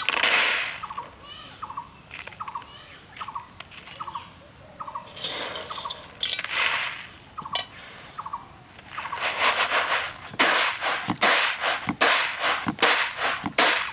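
Dried gram seeds (chickpeas) rattling as they are scooped by hand in a metal pot, then winnowed on a bamboo winnowing tray: a quick run of loud, rhythmic shaking strokes in the second half. A chicken clucks repeatedly in the background early on.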